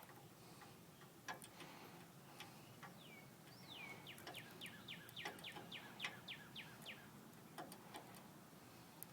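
Faint, scattered light clicks of a lock pick working in the keyway of a small trailer hitch lock. In the middle, a bird sings a quick run of about a dozen short falling whistled notes.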